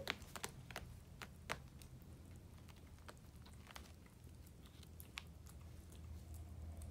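A kitten scratching and biting at a sneaker and its laces: faint scattered clicks and scrapes, thicker in the first couple of seconds.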